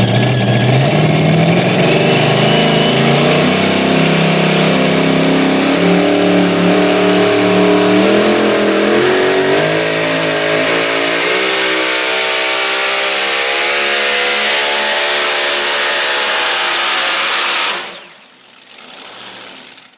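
Modified pulling tractor's engine running flat out under load as it drags the weight-transfer sled down the track. Its pitch climbs over the second half of the run, and it cuts off suddenly near the end.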